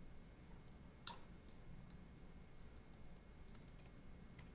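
Faint clicks of a computer keyboard and mouse: a few scattered keystrokes, with one sharper click about a second in.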